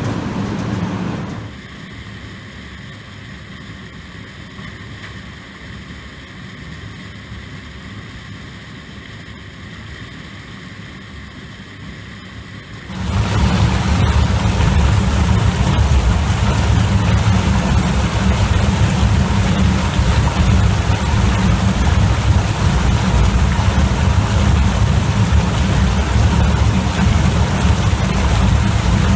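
Potato destoner running steadily, dropping to a quieter steady noise about a second in. About halfway through, this gives way to the loud, steady, deep rumble of a brush-lined barrel washer turning with a full load of potatoes tumbling inside.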